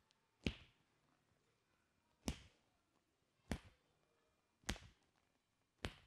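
Five sharp smacks from a masseur's hands working a client's arm and hand, spaced a little over a second apart, with near quiet between them.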